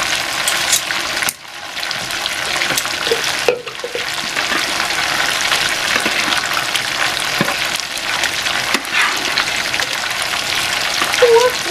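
Chicken frying in hot oil, a steady sizzle, with a few light clicks of metal tongs against a bowl and a blender cup.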